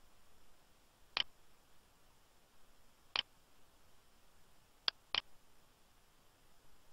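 Computer mouse clicking: single clicks about a second in and about three seconds in, then two quick clicks close together near five seconds.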